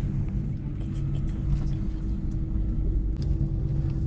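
Steady low rumble of a moving vehicle, with a constant hum underneath.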